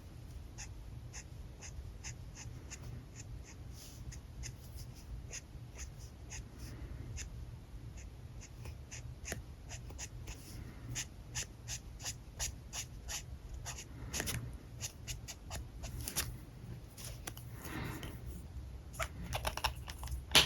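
Alcohol marker tip working on paper: quick short strokes and taps, often two or three a second, with a few longer scratchy strokes near the end, over a steady low hum.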